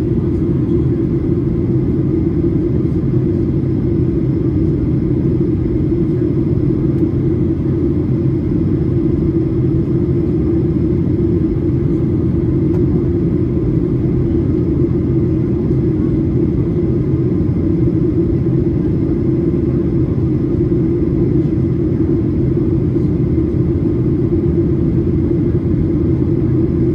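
Steady cabin noise inside a Boeing 737-800 on approach: the low, even rumble of its CFM56-7B turbofan engines and the airflow over the fuselage, with a faint steady high tone above it.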